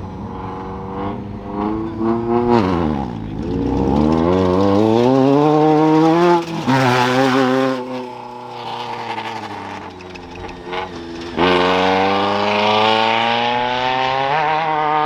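Race vehicles accelerating hard off the start line, their engine pitch climbing in long sweeps. A fresh, loud engine starts up suddenly about two-thirds of the way through and climbs in pitch as it pulls away.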